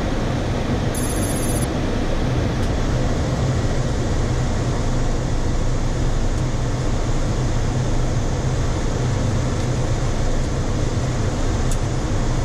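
Steady flight-deck noise of a Boeing 737-400 on approach: air rushing past the cockpit over a low, even engine hum.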